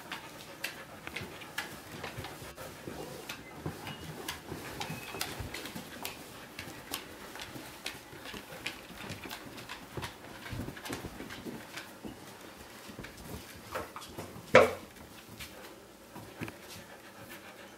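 Rough collies' claws clicking irregularly on a ceramic tile kitchen floor as they walk. One loud, sharp knock stands out about three-quarters of the way through.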